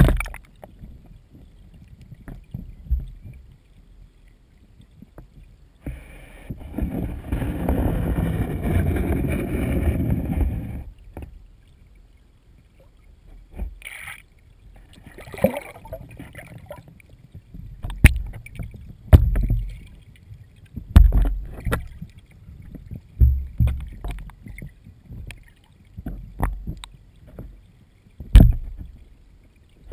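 Muffled underwater sound inside a submerged GoPro HERO2's waterproof housing in a pond of feeding trout. Scattered low knocks and thumps hit the housing, and about six seconds in there are roughly five seconds of churning, rushing water noise.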